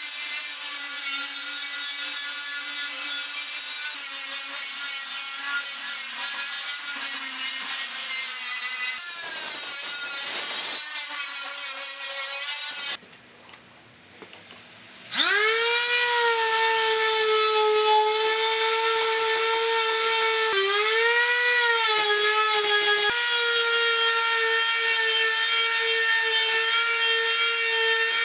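DeWalt angle grinder with a brush wheel scouring rust off sheet steel, running with a steady whine. After a lull of about two seconds, an electric palm sander spins up with a rising whine and runs steadily on the wood, its pitch dipping briefly twice as it is pressed down.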